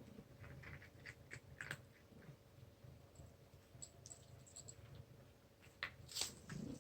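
A cat eating: faint scattered clicks and crunches of chewing, with a louder pair of clicks near the end.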